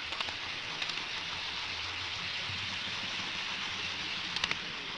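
Steady rushing noise of a model train rolling along HO-scale track, heard from a camera car riding on it. A few sharp clicks come from the wheels crossing the track, one pair near the start and a pair near the end.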